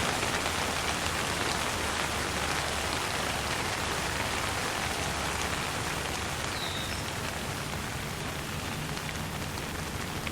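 Light rain falling steadily, with a patter of scattered drops over a low rumble, slowly growing a little softer. A brief high chirp sounds about two-thirds of the way through.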